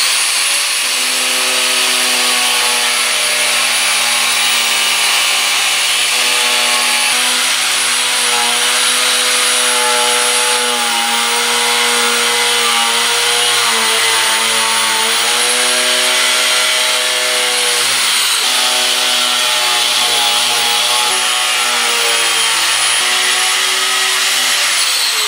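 Corded DeWalt angle grinder with a cut-off disc running at full speed and cutting through a skid plate. It gives a steady high whine, and its pitch sags and recovers a few times as the disc bites under load.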